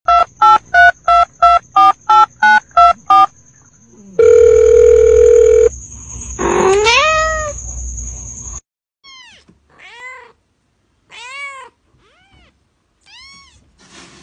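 About ten quick electronic beeps like phone keypad tones, roughly three a second, then a long steady beep and a loud rising call. From about nine seconds in, a kitten mews over and over, short high cries about once a second.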